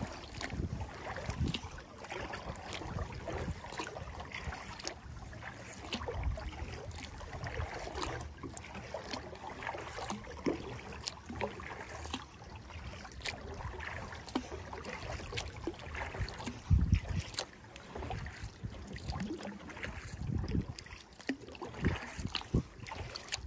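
Eddyline Skylark sit-inside kayak being paddled through choppy water: irregular splashes of the paddle blades and water slapping against the hull. Wind gusts buffet the microphone several times.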